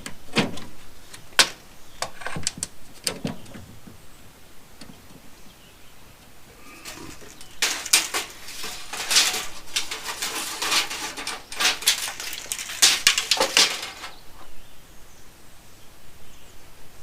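Sharp clicks and knocks, then several seconds of dense clattering, from hands working with tools and wood while measuring the centre of a beam.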